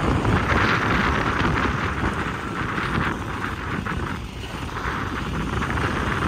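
Wind rushing over the microphone and road rumble from a car driving over a rough, cracked road, easing slightly about four seconds in.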